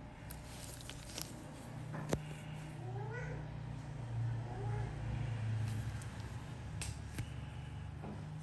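Domestic cat purring steadily, with a couple of short rising mews about three seconds in. A few sharp clicks sound over it.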